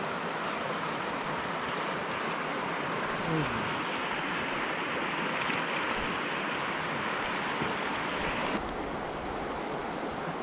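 Shallow rocky river rushing over stones and a low ledge: a steady, even rush of water that turns a little duller near the end.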